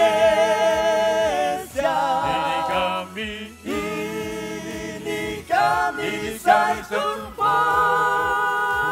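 Male a cappella vocal group singing in close harmony, several voices moving together in chords with no instruments. The chords are held between short sung phrases, and the last one, near the end, is held longest.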